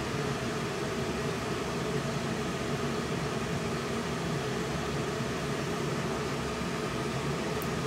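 Bosch gas furnace's blower fan running steadily: an even rush of air with a faint hum, while the burner and heat pump have not yet fired up.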